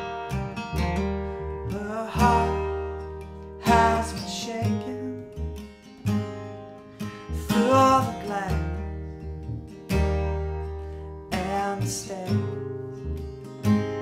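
Acoustic guitars strumming a mid-tempo folk-Americana song in an instrumental break between verses. A melodic line over them slides up into its notes every couple of seconds.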